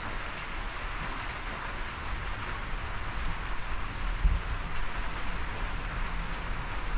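Steady rain falling, an even hiss, with a single low thump about four seconds in.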